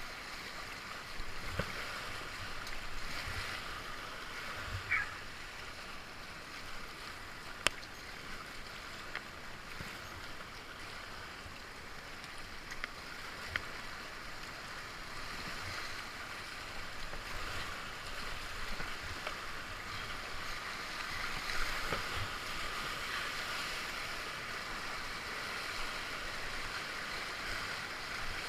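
Rushing whitewater of a river rapid around a kayak, a steady hiss of moving water with a few short sharp clicks, the loudest about eight seconds in.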